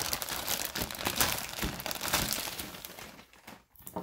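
Clear plastic protective bag crinkling and rustling as a laptop is pulled out of it, dying away about three seconds in.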